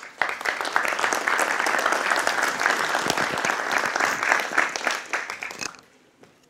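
An audience applauding, many hands clapping together, dying away about six seconds in.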